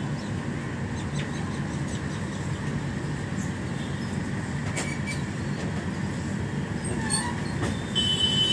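Passenger train running along the track, heard from inside a carriage: a steady rumble of wheels on rails with a few sharp clicks, and a brief high-pitched squeal near the end.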